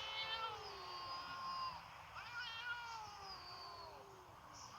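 Cats meowing: long, drawn-out meows that slide downward in pitch, overlapping one another, with a first group at the start and a second about two seconds in.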